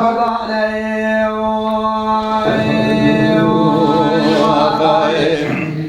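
Kurdish dengbêj singing, one unaccompanied voice. It holds a long steady note for about two and a half seconds, then moves into a wavering, ornamented melody.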